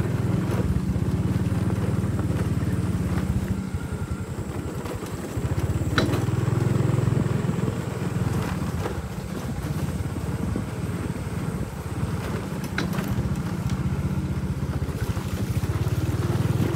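Motorbike engine running while riding over a rough dirt track, heard from the rider's seat, easing off and picking up again as the throttle changes. Two sharp knocks stand out, about 6 and 13 seconds in.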